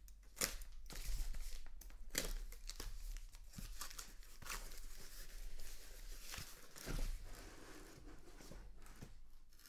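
Packaging of a sealed baseball card case being torn open and crinkled: irregular tearing and rustling with many scattered sharp clicks.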